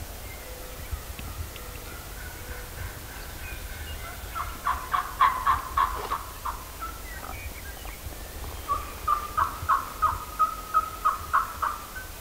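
Wild turkey gobbling: a rattling gobble about four and a half seconds in, then an even run of about ten short calls, roughly three a second, near the end.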